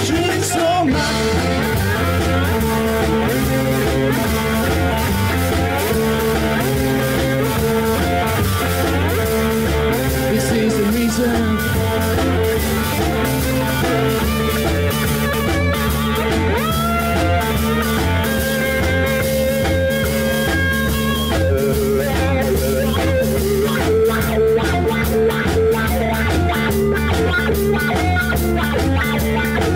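A live rock band playing an instrumental passage: a lap steel guitar plays sliding lead lines over electric bass and a drum kit.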